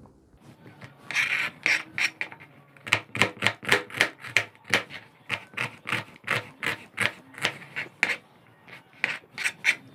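Chef's knife chopping onion on a plastic cutting board: a steady series of sharp knocks, about three a second, with a short pause near the end.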